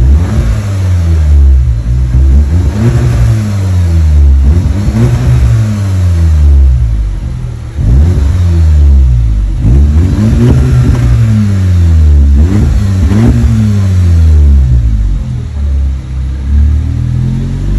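Skoda Octavia engine revved repeatedly in place through a stainless-steel split dual exhaust with carbon tips, about nine times, each rev climbing and dropping back. The catalytic converter and resonator are still fitted, so the note stays moderate.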